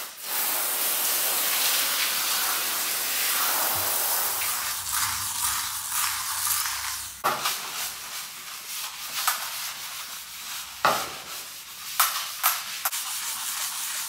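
Hose spraying water onto a stainless steel bulk milk tank: a steady hiss for about seven seconds that stops suddenly. A hand brush then scrubs the soapy tank side, with scattered rubbing and light knocks.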